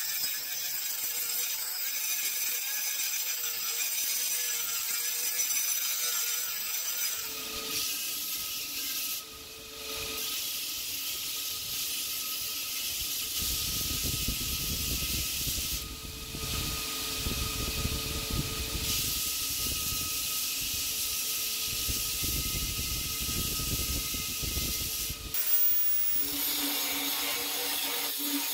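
An angle grinder with a sanding disc whines against a steel bar. About seven seconds in, a belt grinder takes over, running with a steady whine as steel is ground against the belt. Near the end, an angle grinder with a cut-off wheel cuts into steel.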